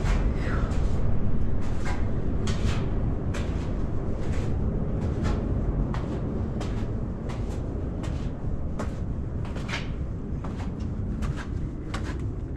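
Footsteps of a person walking at an even pace, about two steps a second, over a steady low rumble.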